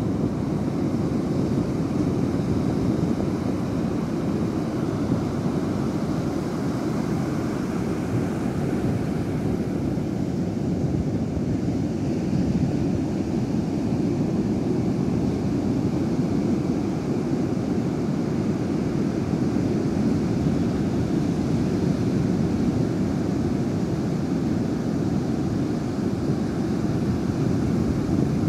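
Steady low rumble of wind buffeting the microphone, mixed with surf breaking on the shore.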